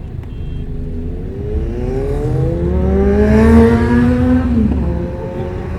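Bus engine pulling away under load over a steady low rumble, its pitch rising for about three seconds and getting louder, then dropping suddenly as the gear changes or the throttle lifts.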